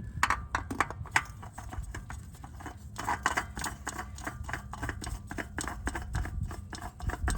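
New spin-on oil filter being turned by hand onto the oil filter housing: a quick, irregular run of small clicks and scrapes, several a second.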